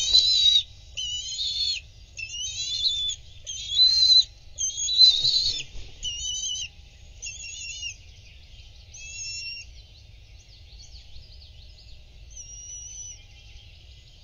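Bald eagles calling: a run of high, thin, chittering calls, one after another, loud for the first six seconds or so, then fainter and more spaced out. A brief low rustle at the start, as the adult flaps off the nest, and another about five seconds in.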